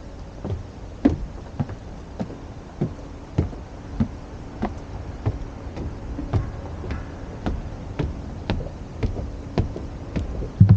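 Footsteps walking at a steady pace, about two steps a second, over a faint steady hum.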